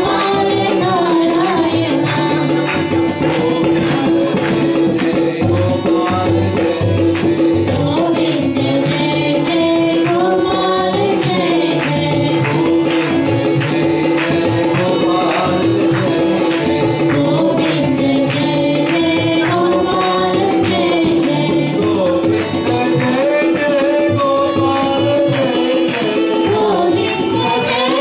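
Devotional bhajan: a man sings over a harmonium that holds a steady drone, with hand percussion keeping a regular beat.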